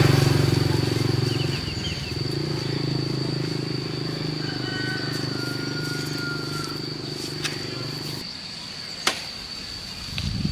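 Motorbike engine idling with a steady low hum, cutting off abruptly about eight seconds in. A steady high insect drone sounds alongside, and there is a single sharp click near the end.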